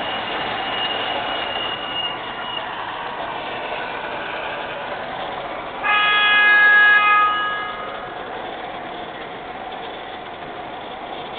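MTH O-gauge model R40 'slant' subway train running into a station, a steady rumble of motor and wheels on the track with a thin high squeal in the first couple of seconds. About six seconds in, the model's sound system sounds its horn for about two seconds, the loudest part.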